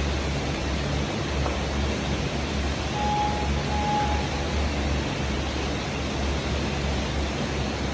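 Two short electronic beeps from a gym interval timer about three seconds in, as its countdown reaches zero and a new interval starts. Under them is a steady rushing noise with a low hum.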